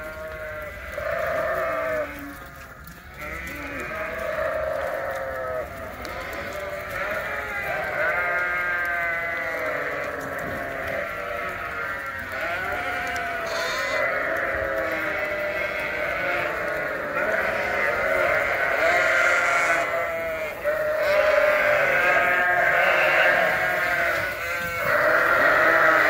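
Many lambs bleating over one another without a break, growing louder near the end. They are bottle-fed lambs calling for their milk as they crowd after the teat buckets.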